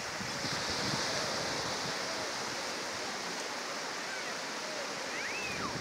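Sea surf breaking and washing up a sandy beach, a steady rush with a louder hiss of foam from about half a second in that eases off after a second or so.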